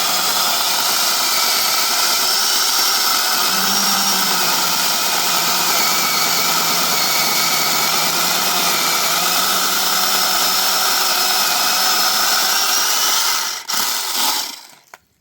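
Supstable cordless battery mini chainsaw running steadily under load as it cuts through a tree trunk, its electric motor giving a steady whine. Near the end the saw stops, briefly restarts, and cuts off.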